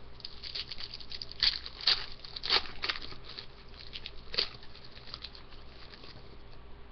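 Hockey trading cards handled by hand, shuffled and slid against one another: a run of soft rustles and clicks, with a few louder snaps of card edges between about one and a half and four and a half seconds in.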